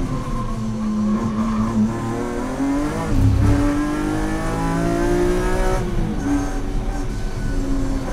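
BMW E46 M3's S54 straight-six engine, fitted with race headers and a race exhaust, driven hard and heard from inside the stripped, caged cabin. The note holds low and steady for about two seconds, then climbs through the revs, drops sharply at an upshift just before six seconds in, and starts climbing again; a short low thump comes about three seconds in.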